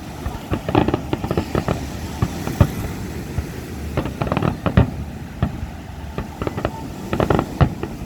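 Fireworks going off in an irregular series of sharp bangs and pops. The loudest come about two and a half seconds in, near the middle, and in a cluster near the end.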